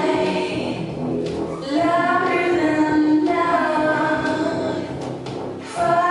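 Several voices singing long held notes together over music, in phrases, with a brief dip under two seconds in and another near the end.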